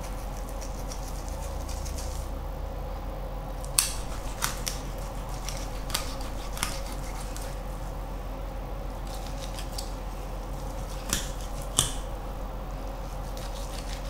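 A knife cutting along a whole snapper's rib bones, giving six short sharp clicks in three pairs as the blade catches on the bones, over a steady low background hum.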